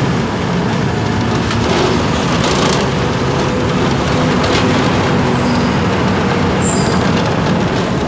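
A city bus in motion, heard from inside the cabin: steady engine and road noise, with the engine's pitch shifting a little.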